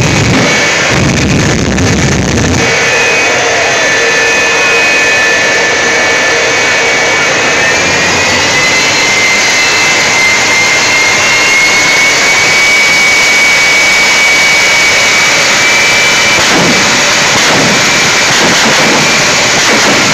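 Jet truck's turbine engine running loud with a steady high whine. For the first couple of seconds the afterburner fires with a heavy low rumble, then cuts out. The whine climbs slightly in pitch about eight seconds in and holds.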